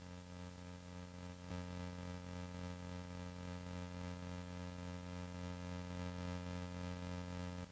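A steady buzzing hum with many overtones. It gets louder about a second and a half in and cuts off abruptly at the end.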